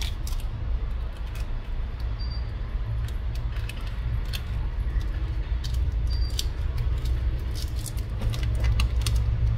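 Steady low hum with scattered faint clicks and ticks, like light handling of small parts, and a brief faint high beep about every four seconds.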